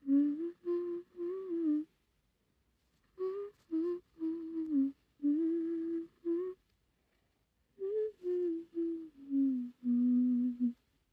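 A woman humming a wordless melody in three phrases of short notes, with brief pauses between the phrases.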